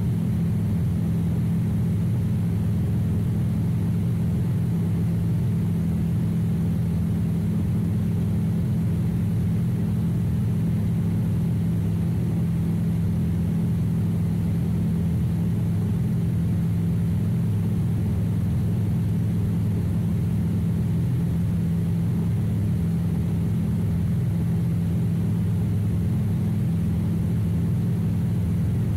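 Light high-wing airplane's engine and propeller running steadily in level cruise flight: a constant low hum that does not change in pitch or loudness.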